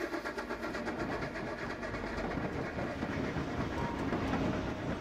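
Train rolling past: a steady rumble with the rapid clickety-clack of wheels over rail joints, a sound effect dubbed onto silent film.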